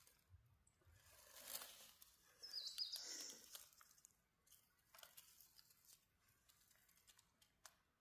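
Faint rustling and crackling of dry leaf litter and fern stalks as a gloved hand handles them, with a brief high chirp about three seconds in.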